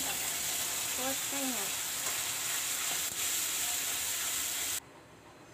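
Wet green masala paste of coriander, garlic, onion and green chilli sizzling and frying in hot oil in a metal kadhai. The sizzle is steady, then cuts off suddenly near the end.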